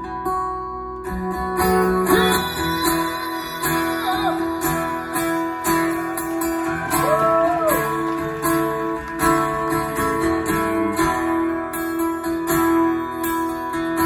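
Acoustic guitar strummed in a steady rhythm in an instrumental passage between sung lines.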